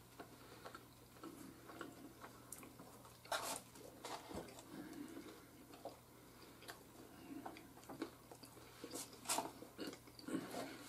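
Faint crunching and chewing of hard, dry oven-baked pizza rolls, with scattered small clicks of handling at the plates and a couple of louder crunches.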